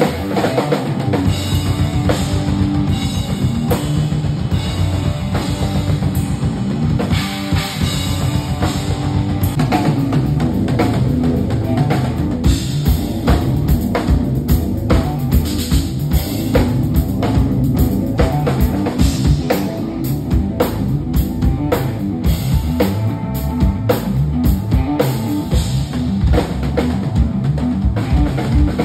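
A rock drum kit played in a fast, busy groove: driving bass drum and sharp snare hits with cymbals, loud and continuous throughout.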